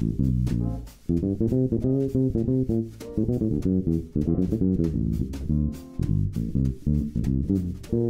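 Background music of plucked bass and guitar.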